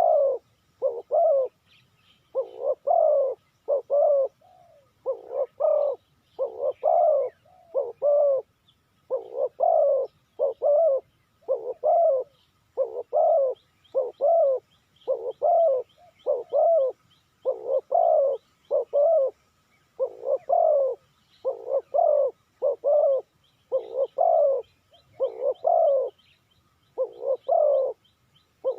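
Spotted dove cooing over and over, short hollow notes in groups of two or three with brief gaps between phrases. A smaller bird chirps faintly in the background, with quick high ticking runs about halfway through and again near the end.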